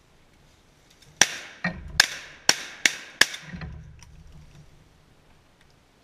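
A quick volley of shotgun shots from the duck hunters, about five sharp blasts in roughly two seconds starting a little over a second in, with a weaker report between the first two.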